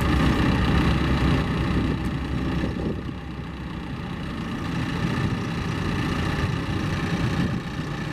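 John Deere 310SL backhoe loader's diesel engine running steadily at about idle, its level dropping a little about three seconds in.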